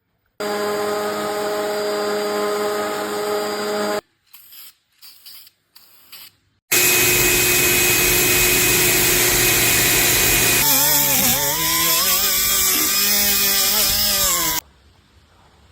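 Electric power tools working wood: a motor runs steadily for about three and a half seconds, then after a few light knocks a louder tool cuts into the wood for about eight seconds, its pitch wavering up and down as it bites.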